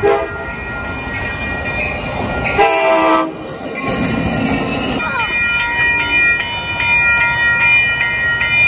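Railroad crossing bells ringing over the rumble of an Amtrak Pacific Surfliner passenger train passing through the crossing, with a short blast of the train's horn about three seconds in.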